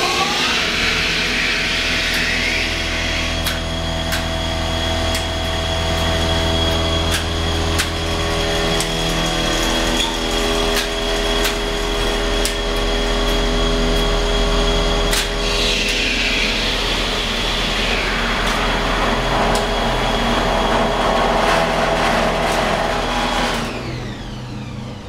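1962 Dover hydraulic elevator power unit running, its pump motor giving a steady hum and whine with occasional clicks, then shutting off near the end.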